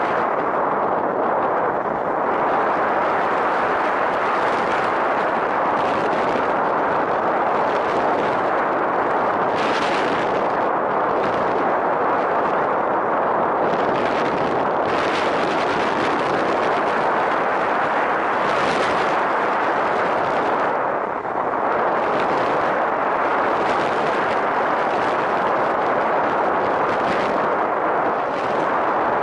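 Steady rush of wind buffeting the microphone of a camera mounted on a radio-controlled model aircraft in flight, swelling briefly a few times.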